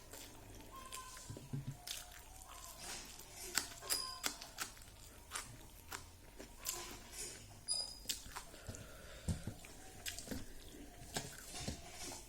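A person eating rice with fried dried pork, chewing with scattered soft clicks and mouth smacks.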